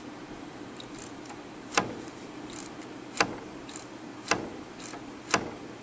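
Plasma torch on a CandCNC Super-ZX torch lifter, moved up and down by hand on its slide, giving four sharp clicks about a second apart over a steady low hum. The lifter is running free with no binding.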